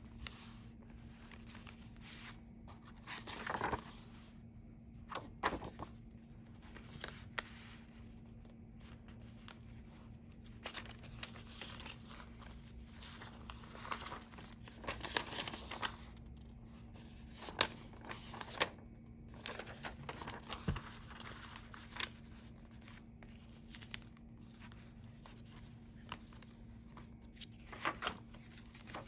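Paper pages and inserts of a handmade junk journal rustling and crinkling as they are turned and handled, in a string of separate rustles with a few sharp paper snaps.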